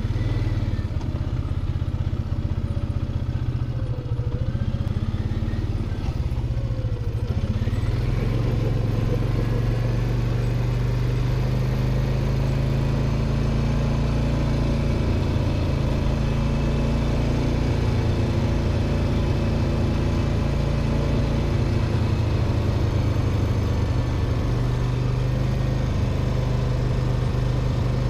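ATV (quad bike) engine running steadily at low speed. The pitch wavers a little over the first several seconds, then holds even.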